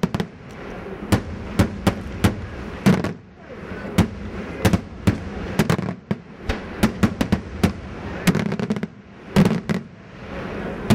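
Daytime fireworks: aerial shells bursting overhead in a rapid, irregular string of sharp bangs, several a second, some coming in quick clusters.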